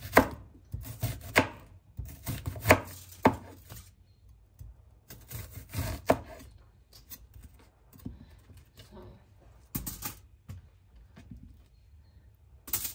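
Knife cutting an onion on a chopping board: irregular sharp knocks in quick clusters, busiest in the first few seconds, then sparser.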